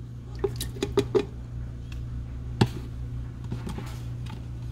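Light taps and knocks as eggs are cracked against a stainless steel mixing bowl and dropped in, the sharpest knock about two and a half seconds in, over a low steady hum.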